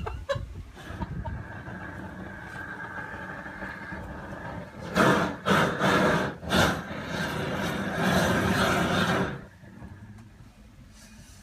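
A motor runs steadily for about eight seconds, with louder stretches around the middle and near the end, then stops.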